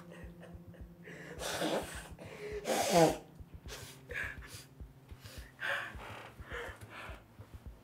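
Two men gagged with duct tape breathing hard through their noses and making muffled vocal sounds behind the tape; about three seconds in comes the loudest, a muffled cry that falls in pitch. Shorter heavy breaths follow every second or so.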